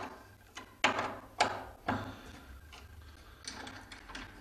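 Screwdriver taking out the fixing screws that hold a rim cylinder lock in a door: a series of sharp clicks and taps, four in the first two seconds, then fainter ones.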